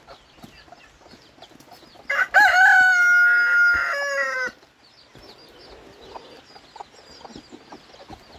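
A rooster crows once: one long call of about two seconds starting about two seconds in. Faint high peeping of chicks goes on throughout.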